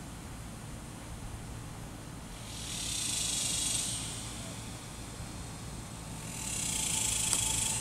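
Cicadas buzzing in two swells, each rising and fading over about two seconds, the first a few seconds in and the second near the end, over a steady low rumble.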